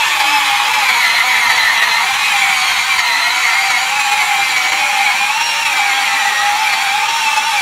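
Small electric gear motor of a toy remote-control tracked vehicle whining steadily as it tows a train of sand-loaded toy trucks, its pitch wavering slightly with the load.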